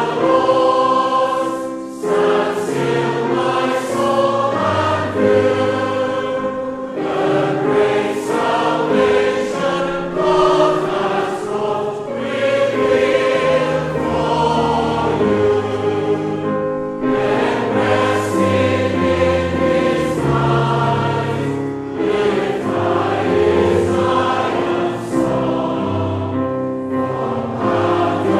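A hymn sung by many voices together over instrumental accompaniment, continuing without a break.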